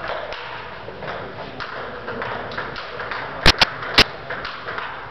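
Table tennis hall ambience with faint scattered ticks of balls and shoes. About three and a half seconds in come three sharp, loud knocks close together, the second softer, far louder than anything else.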